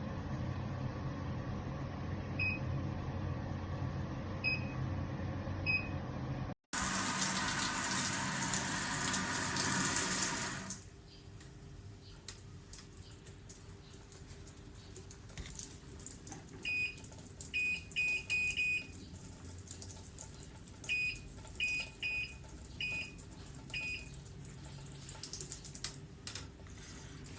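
Instant electric water heater beeping at its controls: a few single short high beeps over a steady rush of running water, then about four seconds of loud gushing water, then quick runs of beeps with small clicks as the buttons are pressed.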